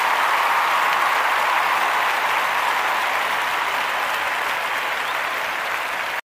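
Crowd applause: steady, dense clapping that eases off slightly and cuts off abruptly right at the end.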